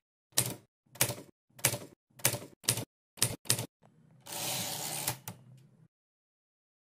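Typewriter key strikes, about seven, spaced roughly half a second apart with the last two coming quicker, followed by a noisy sweep about a second long that ends in a click. This is a logo intro sound effect, typed out as the letters of the name appear.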